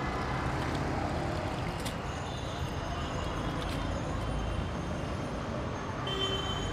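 Steady street traffic noise, a low rumble of passing vehicles. Near the end some high steady tones join in.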